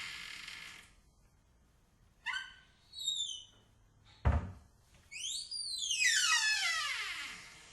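Wardrobe door hinges creaking in long squeals that glide in pitch. A falling creak fades out within the first second, two short creaks follow, then a single sharp thud about four seconds in. A long creak then rises and falls away near the end.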